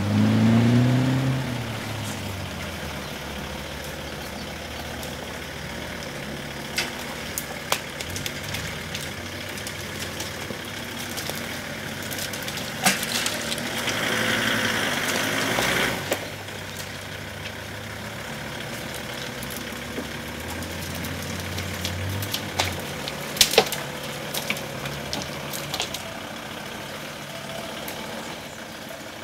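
Off-road vehicle engine running in mud, mostly at idle, with the revs rising briefly at the start and again about two-thirds through. A rushing noise lasts a few seconds midway, and scattered sharp knocks come through, the loudest a cluster near the end.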